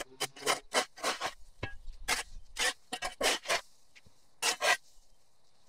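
Shovel scraping up loose dirt and cut grass in a run of short, quick scrapes that stop about five seconds in.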